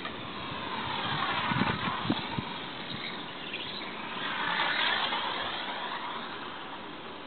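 Losi Micro Highroller RC truck with a brushless motor conversion making two fast passes, its motor and gear whine rising and falling in pitch as it comes and goes. A few dull low knocks come with the first pass.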